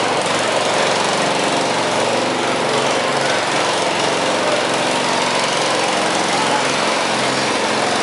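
Riding lawn mower's small engine running loud and steady.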